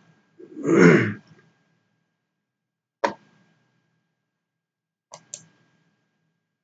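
Computer mouse clicks: one sharp click about three seconds in, then two quick clicks about five seconds in. A short breathy voice sound comes just before them, near the start.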